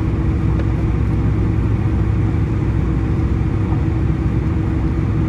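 Steady low drone and hum of a jet airliner's engines and airframe heard from inside the passenger cabin as the plane rolls along the ground, even in level throughout.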